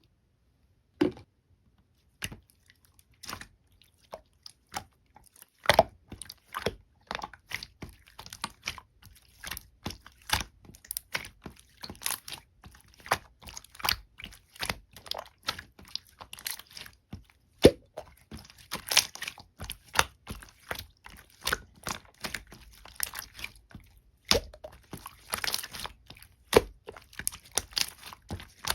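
Mint-green slime being squeezed and poked by hand, making a run of short sticky clicks and crackling pops. The pops are sparse at first, then come quickly and steadily from about six seconds in.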